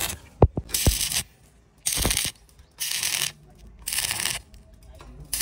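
Rhythmic rasping strokes of a hand tool worked back and forth on material, about one stroke a second, with a few sharp knocks near the start.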